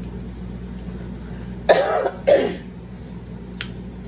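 A person coughs twice in quick succession, two loud, harsh bursts about half a second apart, while eating.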